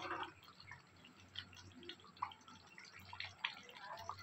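Thick tamarind fish curry simmering in a steel pan: small bubbles popping faintly and irregularly, over a faint steady low hum.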